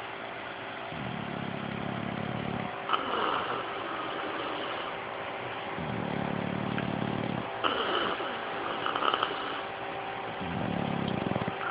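English bulldog snoring in its sleep: three deep, buzzing snores about four and a half seconds apart, each followed by a higher, hissing breath out. Under them runs the steady hum of an electric fan.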